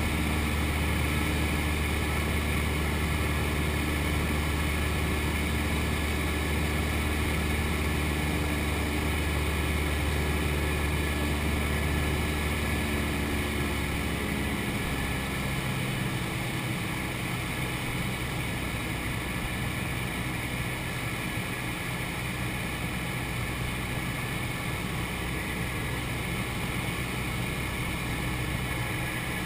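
Cessna 172's piston engine and propeller droning steadily; about halfway through, the engine note drops and gets a little quieter.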